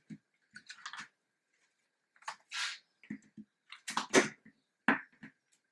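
Scattered soft rustles and taps of cardboard picture cards being handled and taken down from a whiteboard, the loudest about four seconds in.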